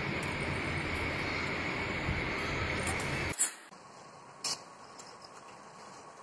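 Gujiya deep-frying in hot oil: a dense, steady sizzle that cuts off suddenly about three seconds in. After it only faint background noise remains, with a light click or two.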